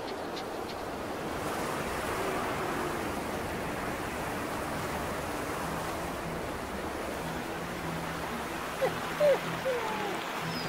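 Steady rushing noise of an outdoor soundtrack ambience, with a few short rising squeaks near the end.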